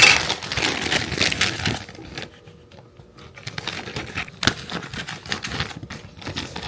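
Plastic packaging of a small toy figure being crinkled and pulled open by hand. There is a dense crackle for about two seconds, then scattered light clicks and rustles.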